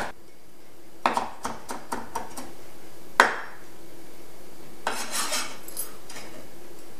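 Chinese cleaver chopping scallion and ginger on a thick round wooden chopping block. There is a run of quick knocks about a second in and one loud knock a little after three seconds, then a brief scrape as the blade is drawn across the board to scoop up the mince.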